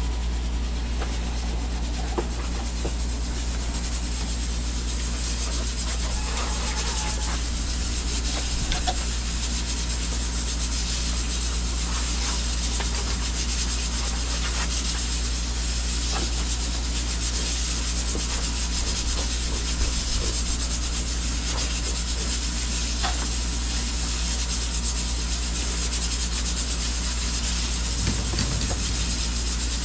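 A steady low hum with an even hiss over it, unchanging throughout, with a few faint light knocks here and there.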